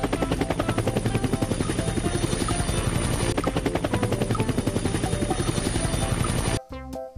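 Helicopter rotor sound effect, a fast, even chopping with a thin high whine over it, cutting off abruptly near the end.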